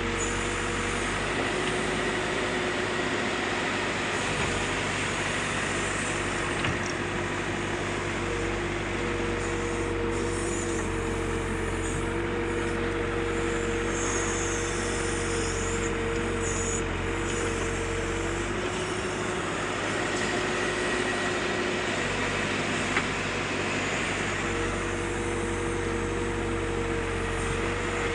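Backhoe loader's diesel engine running steadily while digging, its whine stepping up and down in pitch every few seconds as the hydraulics work the arm. A single sharp knock about two-thirds through.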